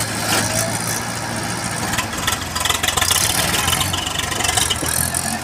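Diesel tractor engines running steadily, with a few sharp knocks about two to three seconds in.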